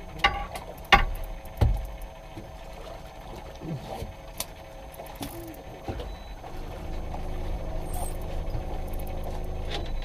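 Knocks and clatter of fishing gear on a boat deck, three sharp ones in the first two seconds, then a low steady hum that comes up about six and a half seconds in.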